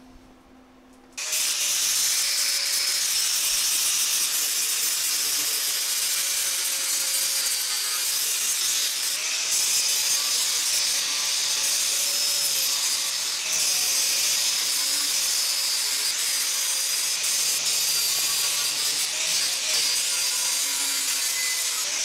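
Porter-Cable angle grinder with a worn flap disc starts about a second in and grinds steadily along the weld seams of a sheet-metal patch panel, its whine wavering as it is pressed into the metal. The welds are being knocked down to show where the seam still needs welding.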